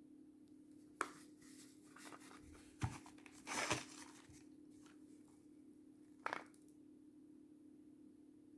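Faint handling noises from a firework being picked up and set down: a few short knocks and a brief rustle of its wrapping, over a steady low hum.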